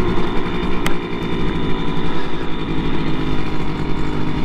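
Simson moped's two-stroke single-cylinder engine running steadily at an even pitch while riding, with one short click about a second in.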